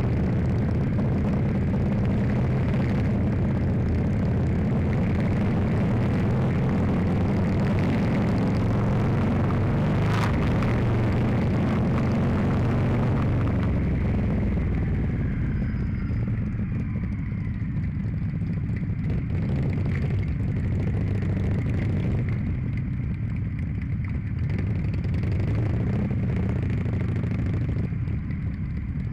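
Motorcycle engines running steadily on a group ride, with wind rushing over the microphone; the rushing eases about halfway through.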